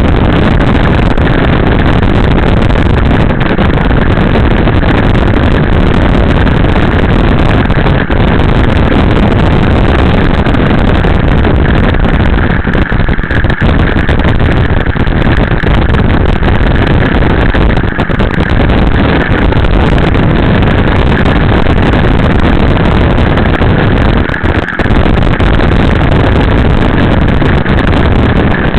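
Loud, steady rush of a motorcycle ride at speed: wind buffeting the microphone over the running engine and road noise.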